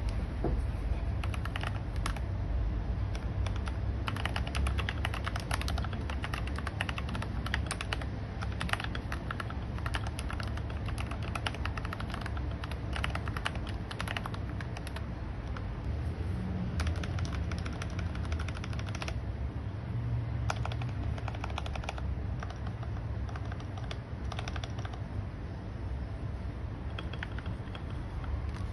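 Typing on a tenkeyless (80%) mechanical keyboard with brown tactile switches: rapid keystroke clicks in bursts with short pauses, over a steady low hum.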